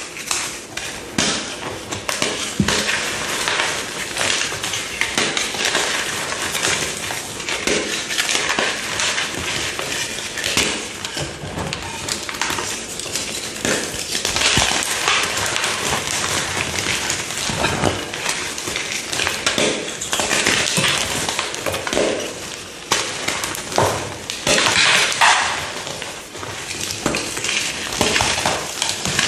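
A brittle yellow material being pressed and crushed in a continuous run of crunching, with dense crackles, snaps and pops. There are louder surges of crunching around a quarter, half and five-sixths of the way through.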